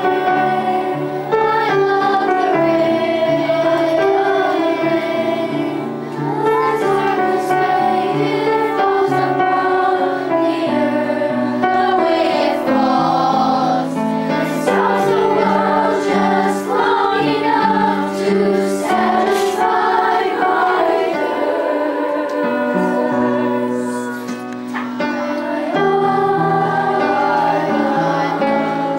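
Middle school children's choir singing a song together, sustained sung phrases with short breaks between them.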